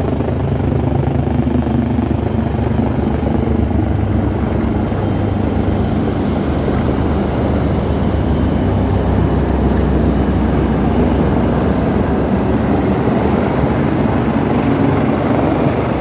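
Helicopter coming in low to land: a steady loud rotor beat with a thin, steady high whine over it. It grows a little louder as the aircraft descends toward the helipad.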